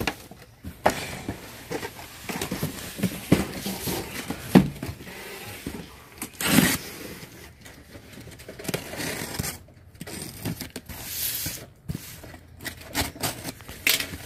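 Cardboard boxes and plastic-windowed toy packages being handled: scattered knocks, rustles and scrapes, the loudest about halfway through. In the second half a utility knife slices the packing tape on a cardboard box.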